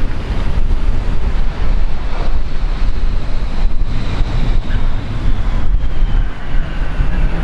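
Wind buffeting the microphone with a heavy low rumble, over a passing jet aircraft whose faint engine whine falls slowly in pitch through the second half.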